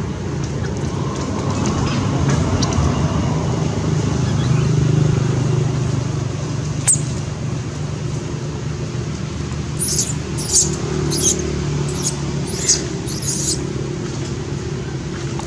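A steady low drone of a motor running, a little louder in the first third, with a single sharp click about halfway and a run of about six short high-pitched chirps later on.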